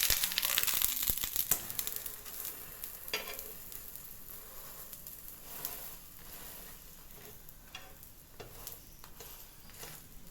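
Pancake batter sizzling in an oiled frying pan just after the pancake is flipped. The sizzle is loudest at first and fades as it settles on low heat, with a few light taps of the spatula against the pan.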